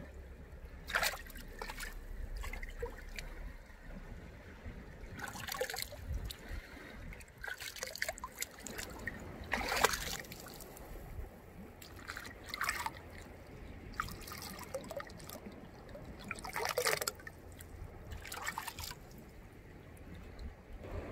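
Water trickling and splashing in about eight irregular short swishes, over a steady low rumble.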